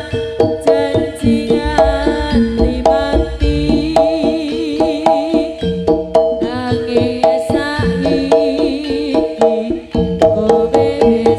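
Live East Javanese jaranan music: kendang hand drums playing busy strokes over sustained ringing gong and metallophone tones, with a wavering, ornamented high melody line.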